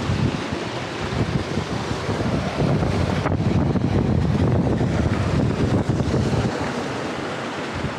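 Wind buffeting a small action camera's microphone, coming in gusts and strongest through the middle.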